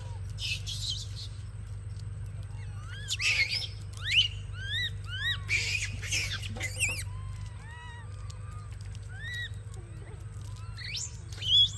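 Monkeys squealing and screeching in many short, high, rising and arching calls, thickest in the middle, with a few bursts of hissing noise among them.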